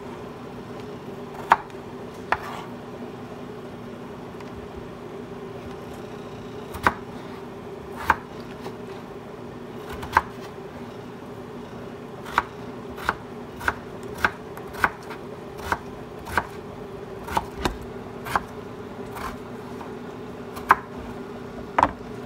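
Kitchen knife chopping peeled potatoes into cubes on a cutting board: irregular sharp knocks of the blade striking the board, a few at first and coming more often through the second half, over a steady low hum.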